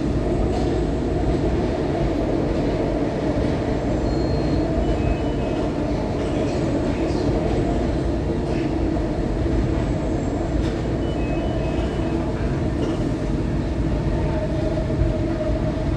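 SEPTA Adtranz M4 elevated-subway train running steadily at speed along the elevated track: a constant low running noise of motors and steel wheels on rail, heard from inside the car, with a few faint short high squeals.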